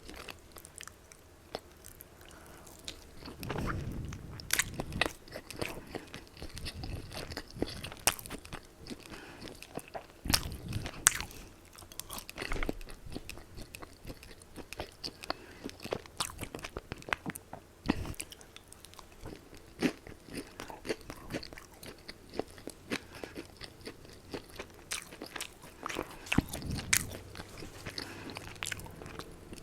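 Close-miked biting and chewing of crispy Popeyes fried chicken: a dense run of sharp, crisp crunches, with a few heavier, deeper thuds scattered through.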